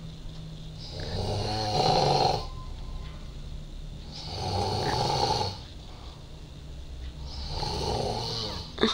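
A man snoring: three long snores about three seconds apart. A short sharp click comes just before the end.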